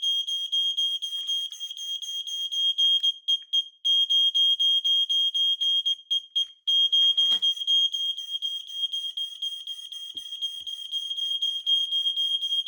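Ei 2110 multisensor smoke alarm sounding, triggered by test smoke: a very loud, high-pitched, rapidly pulsing tone. It cuts out briefly twice, about three and six seconds in, as it is hushed from a radio-link remote, then starts again, which the owner puts down to smoke still in the sensor. There is a short knock about seven seconds in.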